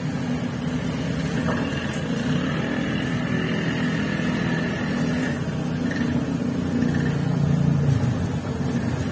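Steady low mechanical drone, engine-like, with no distinct knocks or clicks.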